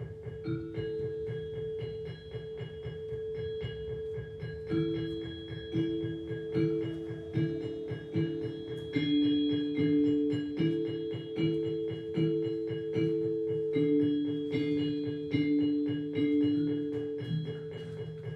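Instrumental music: a steady held tone underneath a slow, repeating line of struck metal-bar metallophone notes, each ringing and fading. The notes come about one every 0.8 seconds from about five seconds in, in a short two-pitch pattern.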